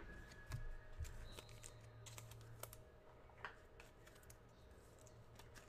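Near silence: faint, scattered small clicks and light taps over a low hum that stops about three seconds in.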